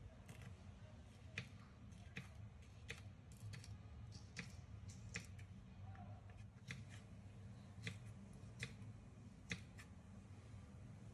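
Kitchen knife slicing small green vegetables on a wooden cutting board: faint, sharp taps of the blade meeting the board, irregular, roughly one a second.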